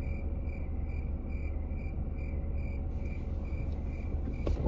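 A car's electronic warning chime beeping at an even rate, about two short beeps a second, over a steady low rumble in the car's cabin.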